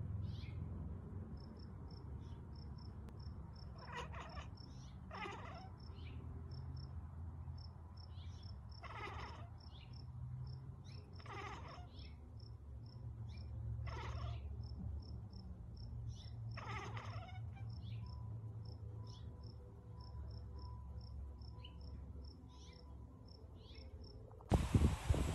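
Tortoiseshell cat at a window giving about six short calls a few seconds apart, over a faint, fast, high chirping from outside and a low steady hum. A sudden loud rushing noise cuts in near the end.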